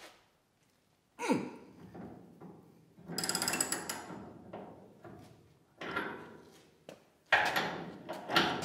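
Hand-cranked hinge pin puller on a VW Beetle door hinge being tightened against a hinge pin that will not move. A run of metallic creaks and clunks from the tool under strain, including a creak that falls in pitch about a second in.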